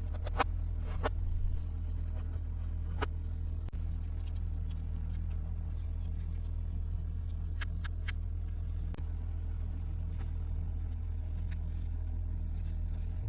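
A few light clicks and taps of plastic toy pieces being handled, over a steady low hum.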